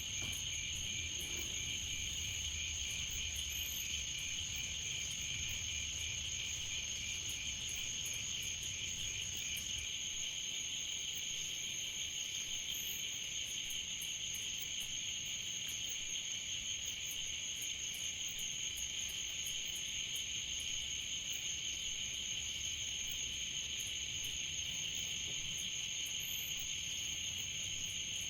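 Chorus of crickets or similar night insects, a steady shrill trilling at two high pitches that goes on without a break.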